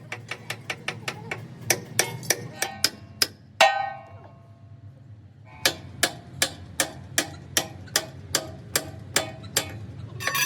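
Hammer blows on metal, about three a second, then a single ringing clang, a pause of about two seconds, and steady blows again at a slightly slower pace. A steady low hum runs underneath.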